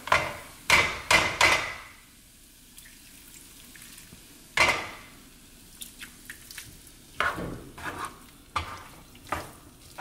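Metal spoon knocking and scraping against a frying pan as potato masala is stirred and hot water is added. There are a few sharp knocks in the first two seconds, one near the middle, and a run of them in the last three seconds.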